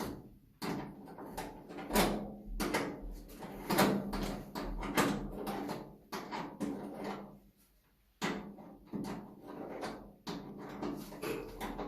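Repeated knocks and clatter of metal dryer parts and tools being handled during a drum bearing replacement, each knock ringing briefly, with a short pause about seven and a half seconds in.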